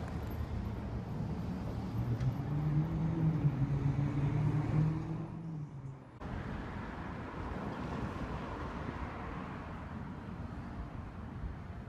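Street traffic: a motor vehicle's engine hum rises and passes a few seconds in, the loudest part, then a brief drop near the middle and steady outdoor traffic noise.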